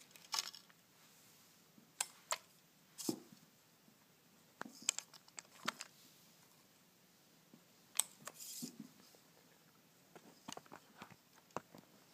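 Faint, scattered clicks and short rustles from a kids' plastic toy fishing pole being handled and its hard rubber worm flicked and dragged across carpet, in irregular groups with a sharper click about a third of the way in and again about two-thirds in.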